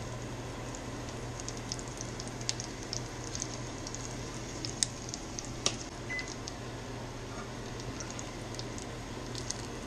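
Breaded surf perch frying in shallow oil in a cast-iron skillet: a low sizzle with many small scattered crackles and pops. There are a few sharper clicks of tongs against the pan, the loudest about five and six seconds in.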